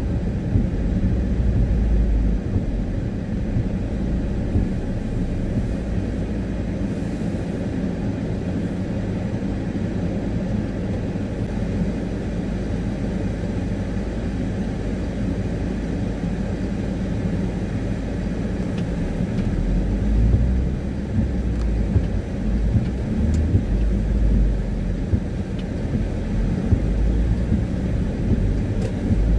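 Car driving on wet city roads, heard from inside the cabin: a steady low rumble of engine and tyres that grows louder and more uneven about two-thirds of the way through.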